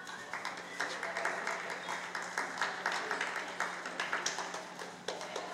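Spectators applauding, a dense patter of clapping that starts just after the beginning and thins out near the end.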